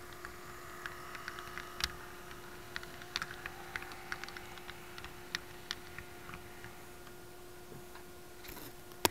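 Light, irregular clicking of an HO-scale model passenger train's metal wheels over the rail joints as the last car rolls past and away, over a faint steady hum. The clicks thin out after about six seconds, and one louder click comes at the very end.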